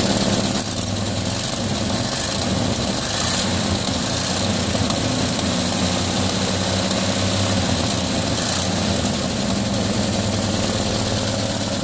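1953 Chevy panel truck's inline-six engine idling steadily, with a serious exhaust leak at the manifold.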